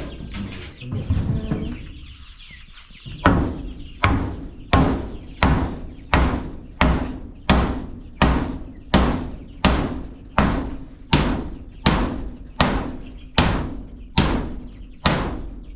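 Hammer blows driving a nail into wood while a chicken perch is built: about eighteen evenly spaced strikes, a little more than one a second, starting about three seconds in. Chickens cluck in the background.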